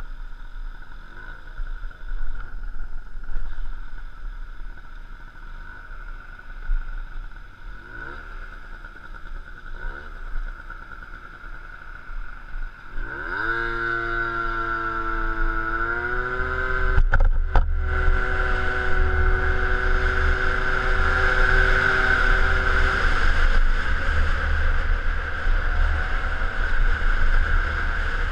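Peugeot Speedfight 2 scooter's two-stroke engine idling with a few short throttle blips, then revving up sharply about halfway through as it pulls away and holding a steady high pitch while riding. Wind rushes on the microphone as speed builds.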